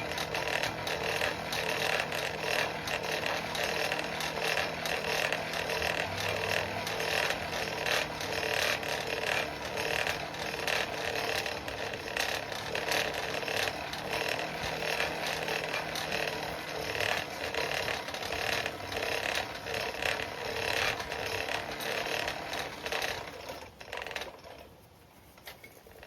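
Forge blower blowing air into a coal fire pot: a steady rush of air with a low motor hum and fast crackling, which stops near the end.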